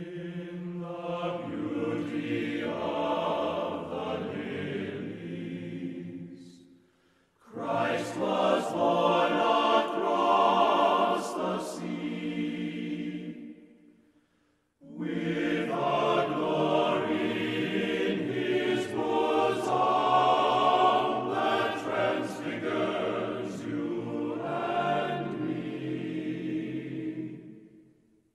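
A choir singing in three long phrases, with brief breaks about seven and fourteen seconds in.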